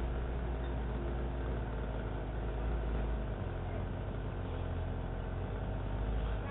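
An engine running steadily with a low hum, its low note shifting slightly about three seconds in.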